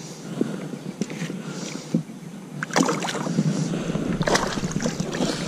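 Water splashing and lapping against a kayak's plastic hull, with small knocks early on and louder splashes about three seconds and about four and a half seconds in.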